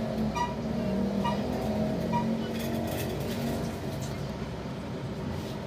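Road traffic from the street: a motor vehicle passes, its low engine hum rising and fading over the first few seconds, with a few short high pips early on.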